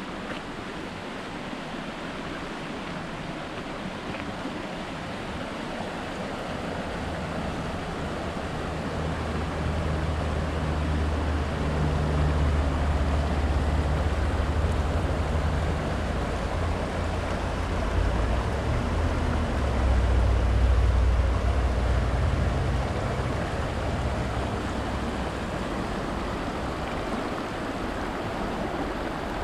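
Mountain river rushing over rocks in a shallow riffle, a steady hiss of water. Through the middle a low rumble swells and then fades.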